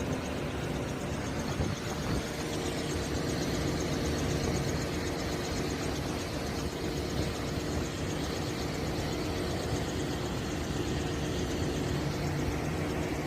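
Packaged rooftop HVAC unit running: a steady machinery hum of fans and motor, with a higher steady tone joining about two seconds in.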